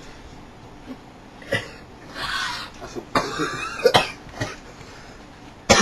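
A person coughing and clearing the throat in several short bursts, with a much louder outburst right at the end.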